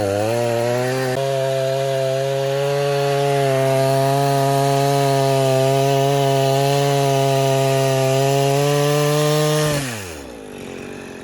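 Husqvarna two-stroke chainsaw held at high revs, cutting through wood, with a brief dip in pitch near the start; about ten seconds in the revs fall sharply as the throttle is released.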